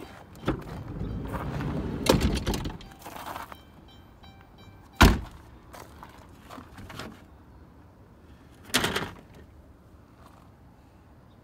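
Door and loose plastic interior trim of a crash-damaged Dodge Caravan minivan being worked by hand: a rolling rumble with knocks over the first few seconds, a sharp thunk about five seconds in, the loudest sound, and another brief knock near nine seconds.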